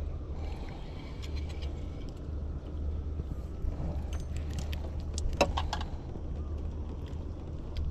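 Small clicks and ticks of a spinning reel and hook being handled as a giant freshwater prawn is landed and unhooked, a short run of them a second or so in and a denser cluster past the middle, over a steady low rumble.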